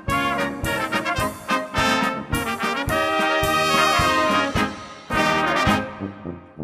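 Brass band music: trumpets and trombones playing a tune over a steady drum beat.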